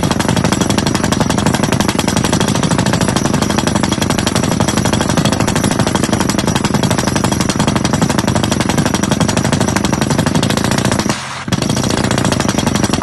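Percussive rock drill rig with a hydraulic rotary head drilling, a loud, rapid, steady hammering that breaks off for a moment near the end and then starts again.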